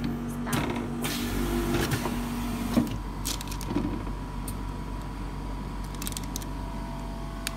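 Automatic OCA laminating machine running: its drive motor hums steadily while the roller carriage travels, with a burst of air hiss in the middle. The run ends with a sharp clack about three seconds in. After that come light clicks and taps as the laminated screen is handled on the mold.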